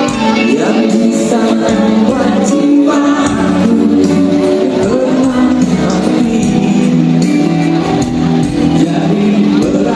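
Music with a singing voice over a band accompaniment.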